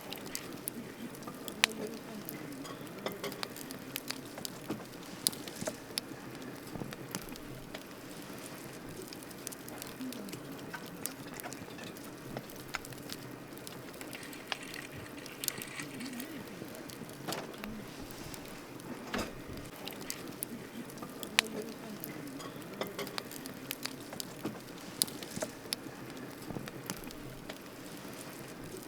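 Wood campfire crackling: irregular sharp pops and snaps, a few much louder than the rest, over a steady low hiss of burning.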